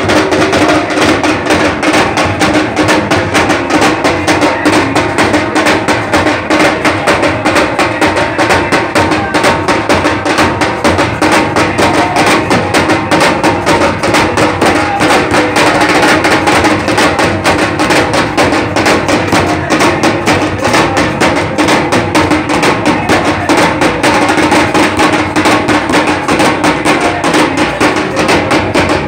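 Many daf frame drums beaten together by a crowd in a fast, unbroken rhythm, over a steady held tone.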